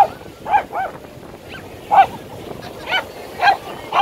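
Lhasa Apso barking, about seven short high-pitched barks in irregular bursts, at children playing in the water, over the wash of surf.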